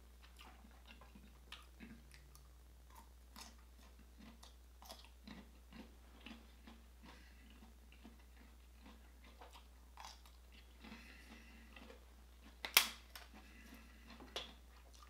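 Close-miked eating sounds of king crab and asparagus: soft chewing with small wet mouth clicks, and a sharp crack near the end, the loudest sound, followed by a smaller one as crab shell is broken open.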